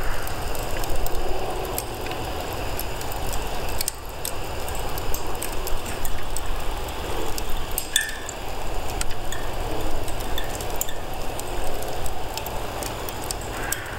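Handheld gas torch held to charcoal in a fire grill: a steady rushing flame with scattered small crackles and pops as the charcoal is being lit but has not yet caught.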